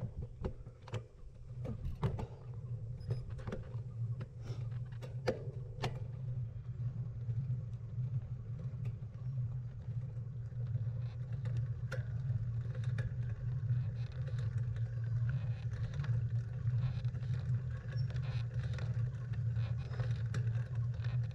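Steady wind rush and tyre rumble from a road bicycle, picked up by a handlebar-mounted camera's microphone. A few sharp clicks and knocks sound in the first several seconds.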